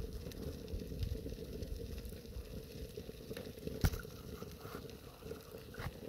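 Ghillie Kettle storm kettle heating water over a burning twig fire in its base: a steady low rumble and sizzle of water close to the boil, with the fire crackling and one sharp crack about four seconds in.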